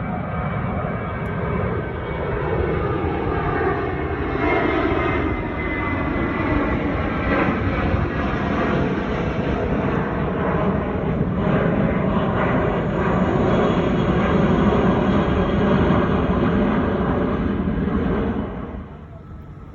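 Jet airliner taking off, its engines at takeoff thrust giving a loud, steady rumble with a faint whine, growing louder as it passes. It cuts off abruptly near the end.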